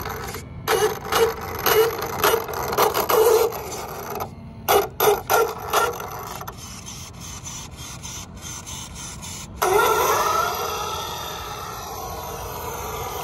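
Battery-electric RC drag truck's motor whining in short throttle bursts with tyre scrubbing on pavement. About ten seconds in, a louder whine comes in and rises in pitch as the truck accelerates away.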